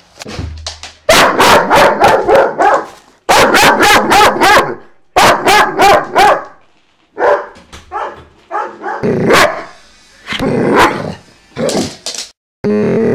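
A German Shepherd dog barking loudly in quick runs of several barks each, three strong runs in the first half, then shorter, softer barks toward the end.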